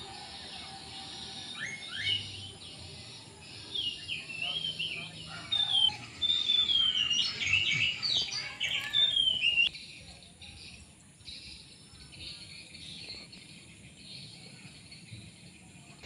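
Songbird singing a varied run of clear whistled notes that slide up and down. It is loudest in the middle, then drops to faint scattered chirps after about ten seconds.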